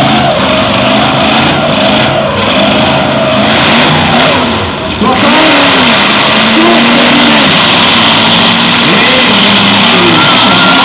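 Demolition-derby cars' eight-cylinder engines revving hard, their pitch rising and falling over and over as the cars spin and push in the dirt. The noise gets louder about five seconds in.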